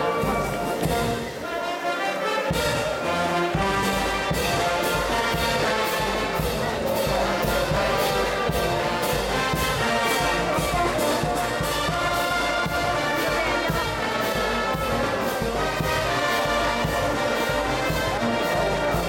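Brass band playing live, trumpets and trombones carrying the tune over a steady drum beat.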